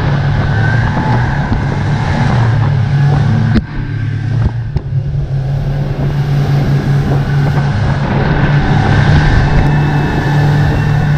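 Twin Mercury outboard motors running at speed, a steady drone under the rush of water spray and wind past the hull, with a brief break about three and a half seconds in.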